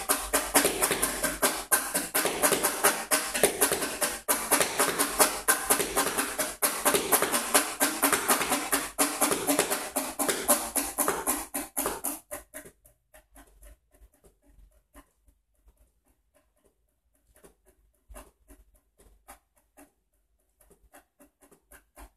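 Fast, dense hand percussion tapped and struck on an object held at the lap. A rapid run of strokes goes on for about twelve seconds, then suddenly drops away to sparse, very faint taps.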